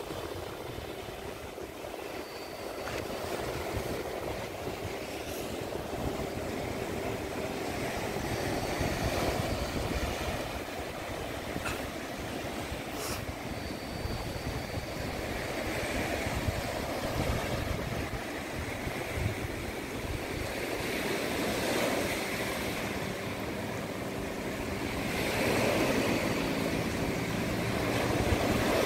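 Small waves breaking and washing up on a sandy beach, the surf swelling and easing every five or six seconds, with a low rumble of wind on the microphone underneath.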